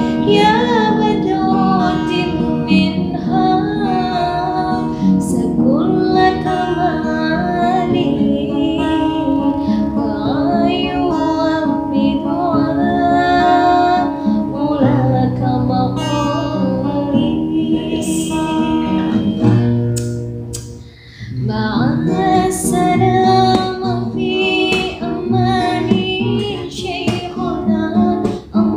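A sholawat, an Arabic Islamic devotional song, sung by a woman and a man to an acoustic guitar accompaniment. The music dips briefly a little past two-thirds of the way through.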